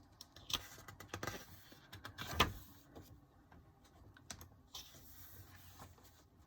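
Handling of a photobook's pages and cover: a few sharp paper rustles and taps, the loudest about two and a half seconds in, then lighter scattered ticks.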